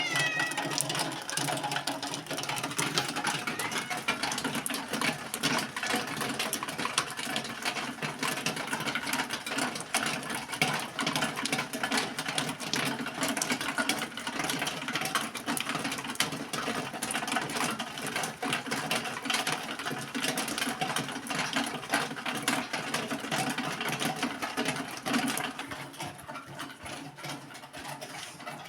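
A small machine running with a fast, steady mechanical clatter that gets quieter near the end.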